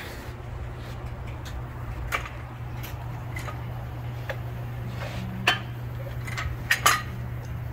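Portable cylinder boring bar running on a small-block Chevy 327 block with a steady low hum, as the cylinders are bored .060 over. A few sharp metallic clinks come through, the loudest a single clink about five seconds in and a quick double clink near the end.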